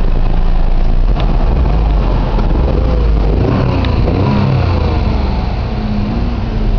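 1992 Daihatsu Jumbo mini truck's small three-cylinder engine running, its pitch rising and falling briefly about halfway through.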